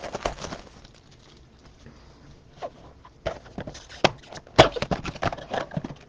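Irregular taps and clicks of trading-card packs and cards being handled on a table. A few at first, then quicker and louder from about two and a half seconds in.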